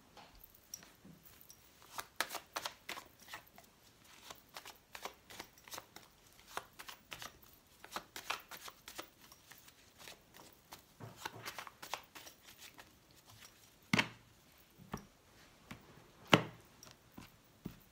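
A deck of cards being shuffled by hand, a long run of quick soft clicks and snaps, with two louder sharp taps later on.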